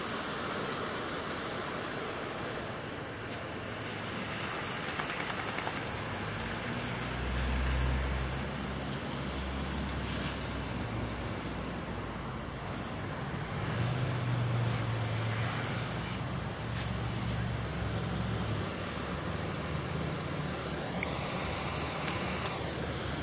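Steady hiss of a garden hose spraying water over a lawn. A low hum joins about a third of the way in and holds through the middle.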